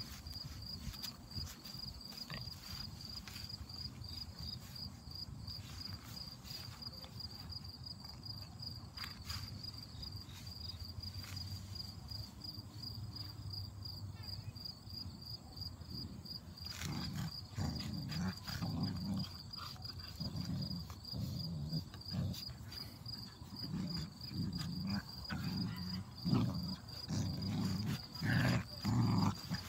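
Two Great Pyrenees puppies growling as they play-fight, in short low growls that come more often and louder in the second half. A steady, high, pulsing insect trill runs underneath.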